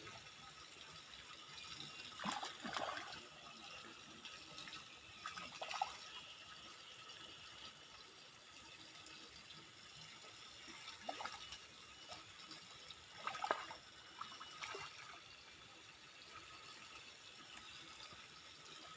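Water splashing and pouring in short bursts every few seconds over a steady low hiss.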